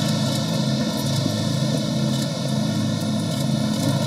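Steady, loud exhibition-hall din: a constant hiss with a low hum that swells and fades in short stretches.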